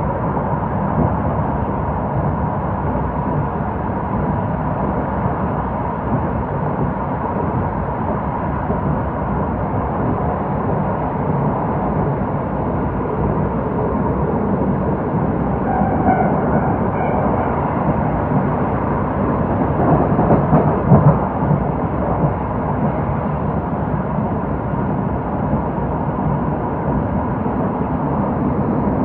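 Running noise inside an old-type passenger coach hauled by an EF70 electric locomotive: a steady rumble of wheels on rail, swelling briefly about two-thirds of the way through.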